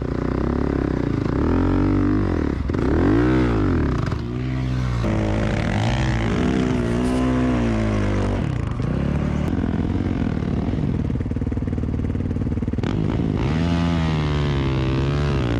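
Dirt bike engine being ridden hard across sand dunes, its pitch rising and falling again and again as the throttle is opened and closed.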